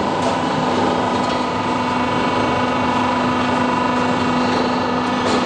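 Decorative panel roll forming machine running steadily: a constant mechanical drone with a steady hum and a higher whine, and a few faint clicks.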